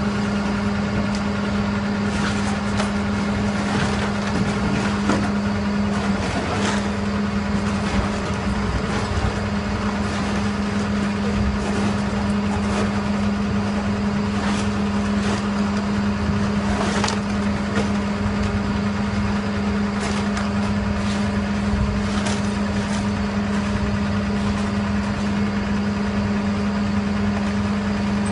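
Skip loader lorry's diesel engine running with a steady hum while its hydraulic arms lift a skip on chains, with a few sharp knocks now and then.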